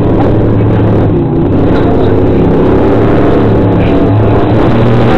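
A motor running steadily with a low, even hum and its overtones, loud and unbroken.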